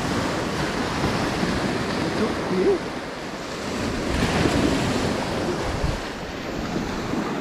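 Sea waves breaking and washing up the shore, a steady surf that swells about four seconds in, with wind buffeting the microphone.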